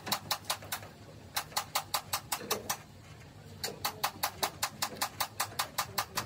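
Quick, even taps on metal, about six a second, in three runs with short pauses between, like a hammer tapping out sheet metal.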